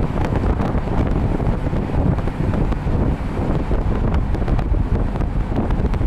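Steady low rumble and rush of a moving bus, with engine and road noise and wind on the microphone, and a few faint rattles.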